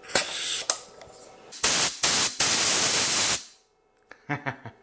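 Compressed air hissing out of an air blow gun on a hose from an oil-free air compressor. A short hiss comes near the start, then two longer blasts from about a second and a half in, which stop abruptly.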